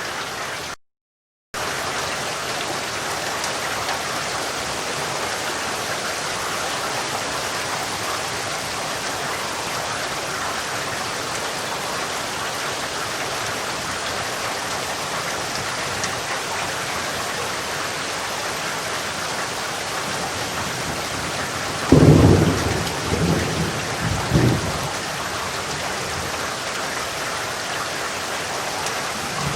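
Steady rain falling, with a low rumble of thunder about 22 seconds in that rolls on for two or three seconds before dying away. The sound cuts out completely for a moment about a second in.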